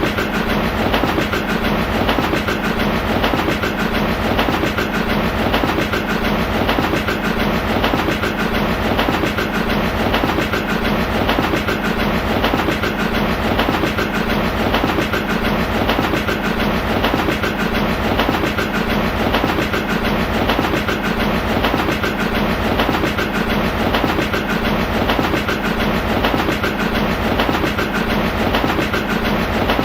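A train running steadily along the track, its wheels making an even, repeating clickety-clack over the rail joints.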